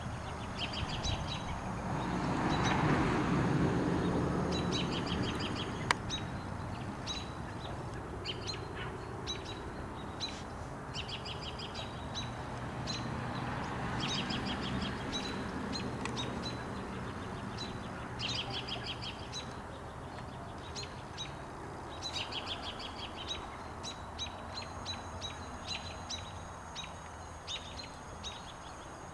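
Small birds chirping over and over, each call a quick run of high, evenly spaced notes, with a steady outdoor background. A few seconds in, a soft rushing noise swells and fades, and a fainter one comes and goes around the middle.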